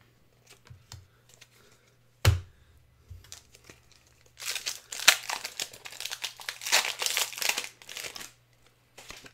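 Foil booster pack wrapper crinkling and tearing for about four seconds as it is opened, after a single sharp knock a couple of seconds in.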